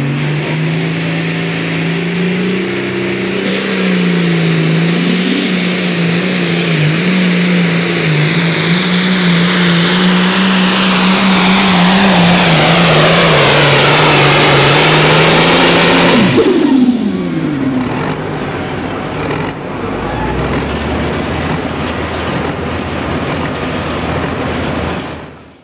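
Case 2294 pulling tractor's turbocharged diesel engine under full load down the track, holding a steady pitch and getting louder for about sixteen seconds. Then the throttle is chopped at the end of the pull: the sound drops suddenly with the pitch falling fast, leaving a quieter rumble that fades out near the end.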